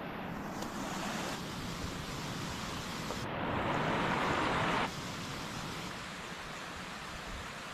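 Sea surf and wind washing steadily, with a louder stretch of rushing noise from about three to five seconds in that cuts off suddenly.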